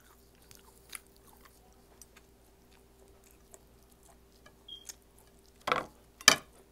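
Close-miked chewing of crispy fried milkfish (bangus), with soft wet mouth clicks, then two sharp crunches near the end, the second the loudest.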